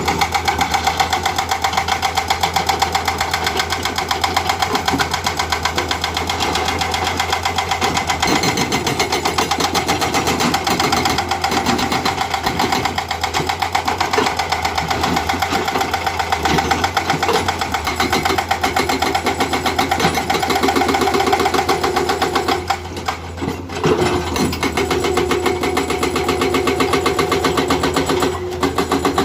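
Excavator-mounted hydraulic breaker hammering rock in a fast, steady stream of blows over the running diesel engine. The hammering stops briefly about two-thirds of the way through and again near the end.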